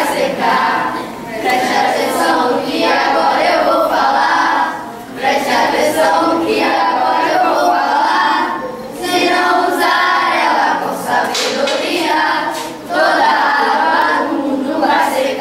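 A group of children singing together, in phrases of about four seconds with short breaks between them.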